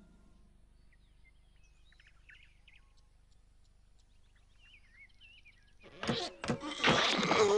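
Faint high chirping over quiet cartoon background, then, about six seconds in, a loud burst of crashing, clattering cartoon sound effects.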